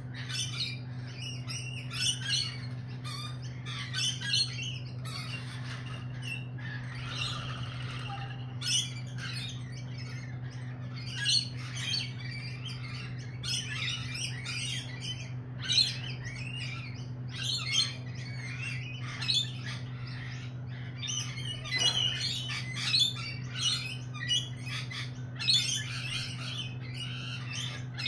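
Several lorikeets chattering and squawking in quick, overlapping short calls, with a steady low hum underneath.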